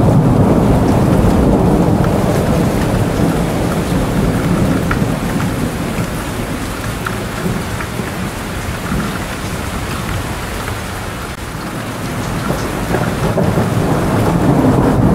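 Steady rain with low rumbling thunder and scattered drop ticks. The rumble eases off a little after the middle and builds again near the end.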